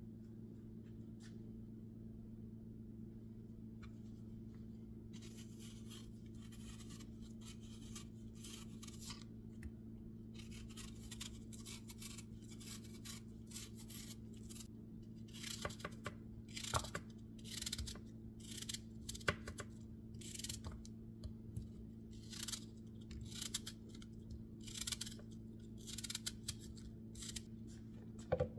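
A kitchen knife peeling a green apple, the blade rasping through the skin in short strokes, then, about halfway through, louder cutting strokes with knocks of the blade on a plastic cutting board. A steady low hum runs underneath.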